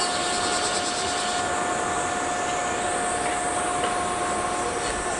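Stopped electric commuter train standing at the platform, its on-board equipment giving a steady hum with a constant whine over a hiss.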